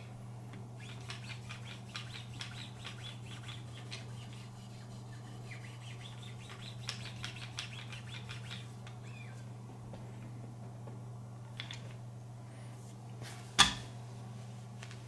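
Fine 9-micron Wicked Edge sharpening stones stroking along a knife blade in a run of quick, scratchy strokes with a few small squeaks, over a steady low hum. A single sharp knock comes near the end.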